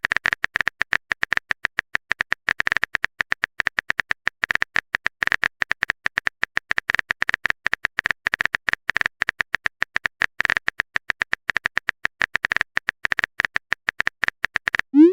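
Phone-keyboard typing sound effect: a fast, uneven run of crisp key clicks, as a text message is typed out.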